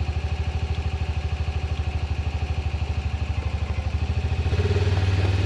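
A small engine idling steadily with an even, rapid pulse, getting a little louder about four and a half seconds in.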